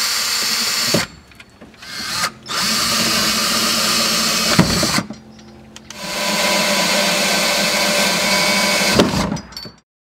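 Cordless drill boring into a plastic kayak's gunnel, running in several steady runs separated by short pauses, with a brief start before one run, then stopping abruptly near the end.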